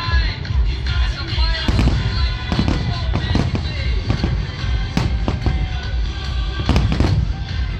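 Fireworks display: about ten sharp bangs and deep booms in quick succession, over a continuous low rumble, with music playing underneath.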